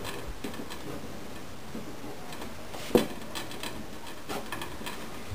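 Light taps and clicks of hands pressing strips of blue tape over freshly glued binding on the rim of an archtop guitar's body, with one sharper knock about three seconds in.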